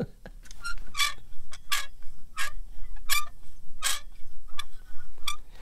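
A small picture frame swung back and forth, squeaking in a regular rhythm about every three-quarters of a second. It sounds like an old rusty playground swing set.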